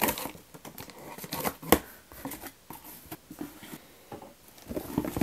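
Handling noise: irregular rustling, tapping and clicking of objects being handled, with one sharp click about 1.7 s in and a cluster of knocks near the end.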